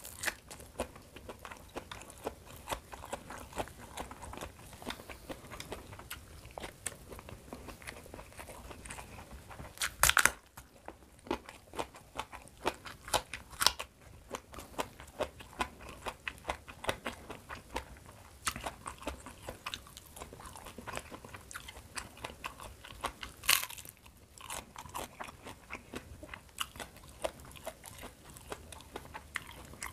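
A person chewing and crunching raw vegetables close to the microphone, with many small crisp mouth clicks. There are two louder crunchy bites, about ten seconds in and again near the 23-second mark.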